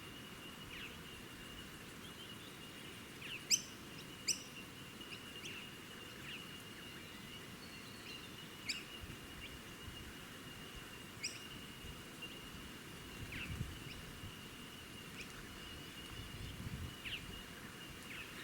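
Wild birds calling outdoors: scattered short, sharp chirps that drop in pitch, the loudest two a few seconds in, over a steady high-pitched whine.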